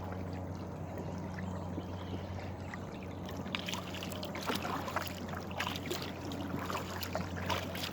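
Water trickling and dripping with small splashes around a kayak on the water, growing busier about halfway through, over a steady low hum.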